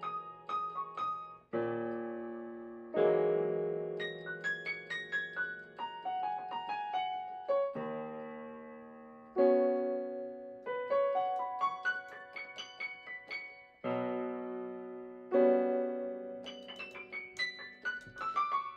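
Slow piano playing on a digital keyboard: full chords struck every few seconds, each left to ring and followed by a quick run of single notes.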